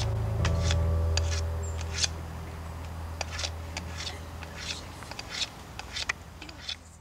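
A low bass note of soundtrack music fading away, with irregular sharp metallic clicks of a handgun being handled and worked over it, several a second.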